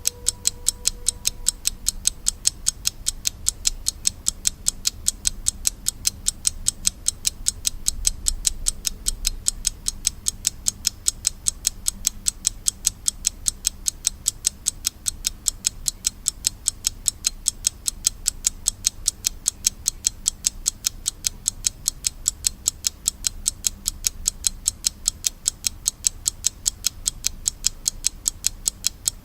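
Slava mechanical alarm clock ticking: a rapid, perfectly even run of sharp, crisp ticks from its escapement.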